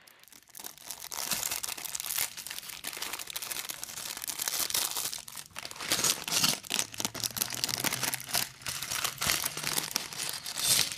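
Thin plastic bags of LEGO bricks crinkling as they are opened and shaken out, with small plastic pieces clicking and rattling as they spill onto the table. Dense, continuous crackle that starts about half a second in.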